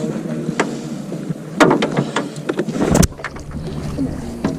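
Knocks and bumps on a small fishing boat, two sharp ones about a second and a half in and three seconds in, over a steady background of wind and water.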